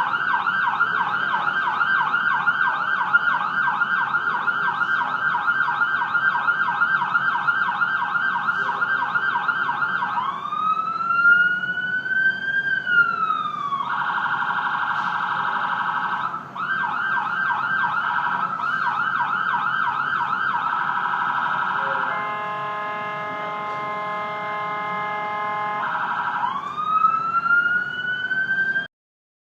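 Ambulance siren switching through its patterns: a fast yelp, then a slow wail that rises and falls about ten seconds in, yelp again, a steady held tone for about four seconds, and a rising wail that cuts off suddenly near the end.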